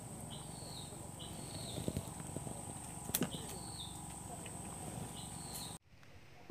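Tropical riverside forest ambience: a steady high insect drone, with a short chirping call repeated roughly once a second and a couple of sharp clicks. The sound drops suddenly to a quieter background near the end.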